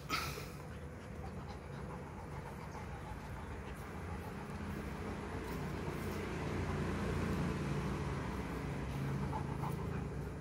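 A Great Dane panting after rough play. There is one brief sharp sound right at the start, and a low steady rumble underneath.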